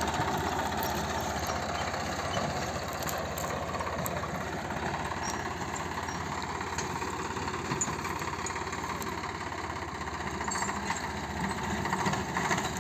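Swaraj 744 FE tractor's three-cylinder diesel engine running steadily under load as it pulls a seed drill through the field.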